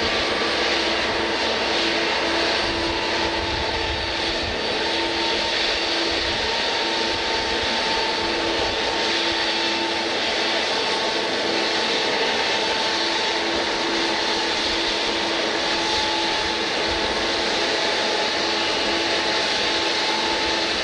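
Jet airliner's engines running steadily: a constant loud rushing hiss with a steady hum and a faint high whine that sinks slightly in pitch.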